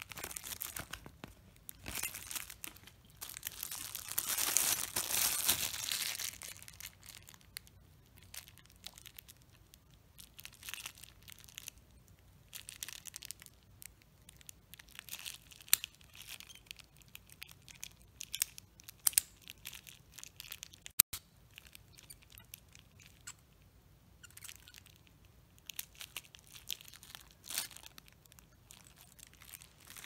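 Paper and plastic packaging crinkling as it is handled, loudest in the first several seconds and again near the end. In between, scattered small clicks and taps from handling a four-digit combination padlock, with one sharp click about two-thirds of the way through.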